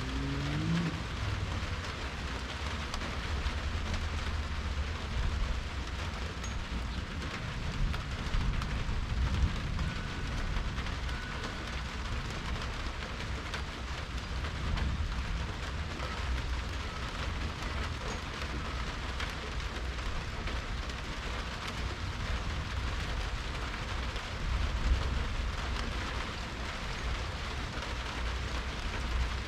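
Steady rain falling on hard surfaces, an even hiss, with a low rumble underneath.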